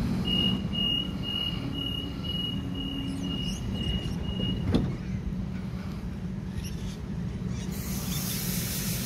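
Door-closing warning beeps of a Sydney Trains double-deck electric train, a rapid high beeping about two and a half times a second for about four seconds, then the doors shut with a thud just before five seconds in. The steady hum of the standing train runs underneath.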